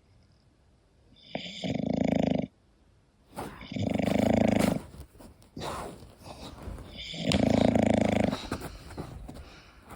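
English bulldog snoring in its sleep: three loud snores about three seconds apart, with quieter breaths between them.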